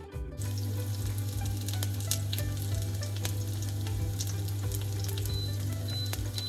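Oil sizzling and crackling in a cooking pan, starting abruptly about half a second in, over a steady low hum.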